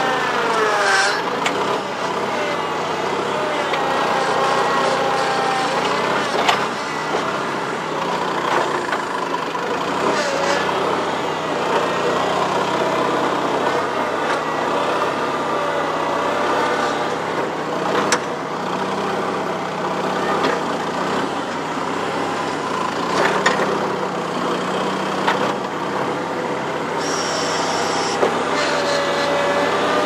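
A New Holland L425 skid steer's four-cylinder Wisconsin engine running steadily while the machine works, with whining tones that rise and fall and a few sharp metal clanks.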